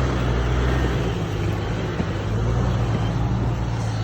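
Off-road vehicle's engine running at low revs as it crawls slowly over trail obstacles, a steady low hum that shifts in pitch about a second in.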